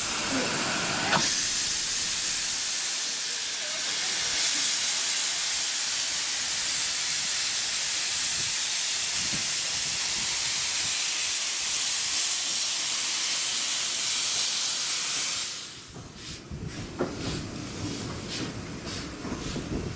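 Steam hissing steadily from a narrow-gauge steam locomotive's open cylinder drain cocks as it moves slowly. The hiss cuts off about fifteen seconds in, leaving quieter clicks and knocks.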